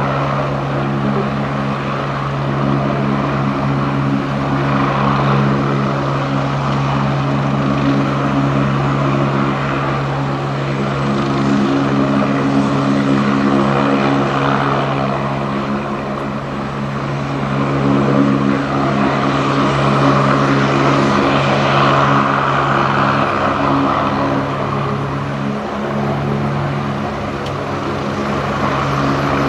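Agusta A109E Power twin-turbine helicopter running on the ground with its rotor turning: a steady engine and rotor drone with several steady low tones, swelling a little in loudness now and then.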